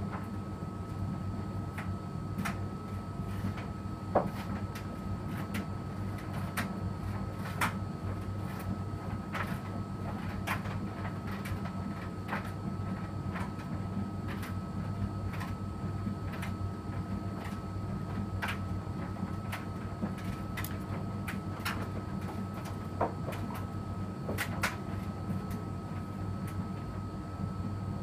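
Electrolux front-loading washing machine tumbling a cotton wash: a steady motor and drum hum with a faint high whine, and scattered clicks and knocks as the laundry turns in the drum, the sharpest about four seconds in.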